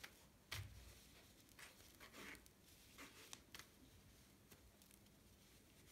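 Faint rag-wiping and handling sounds on a BMX crank arm: soft rustles and a few light clicks and knocks, one small thump about half a second in.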